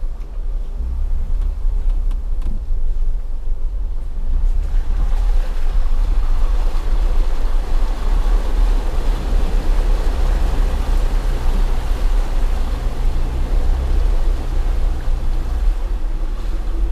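Off-road 4x4's engine running at low speed, with water splashing and sloshing around the tyres as it drives through a deep muddy puddle; the splashing builds about four or five seconds in and dies away near the end.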